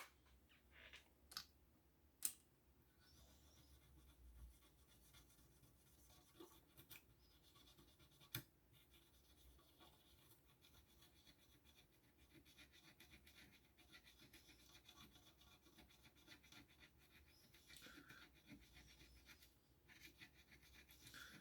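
Near silence: faint room tone with a few scattered light clicks and taps, the clearest about two seconds in and again about eight seconds in.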